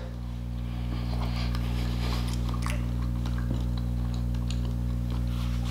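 Close-miked chewing of a mouthful of burger: faint, scattered small mouth clicks, over a steady low electrical hum that is the loudest thing throughout.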